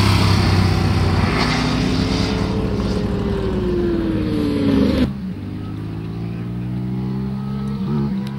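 Sport motorcycle engines running at high revs on a racetrack. The loud engine note sinks steadily in pitch until about five seconds in, then the sound changes abruptly to a quieter, steadier engine note of a bike coming along the track.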